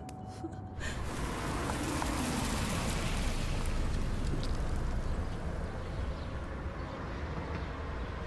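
Car driving slowly up a residential driveway and slowing down, a steady rush of engine and tyre noise with an engine note that falls about two seconds in, then easing off.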